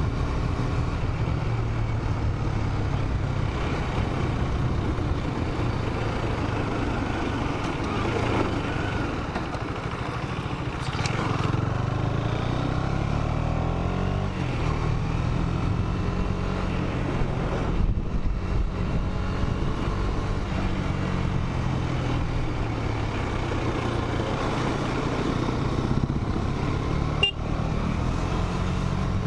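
Single-cylinder engine of a KTM 250 Duke motorcycle running on the road, its pitch rising and falling with the throttle, over steady wind rush on the microphone.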